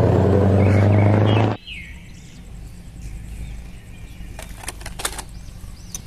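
A Scania semi-truck's loud, steady blare, a low horn-like tone over engine rumble, cut off abruptly about a second and a half in. After that comes a quiet outdoor background with a few bird chirps and some light plastic clicks from toys being handled.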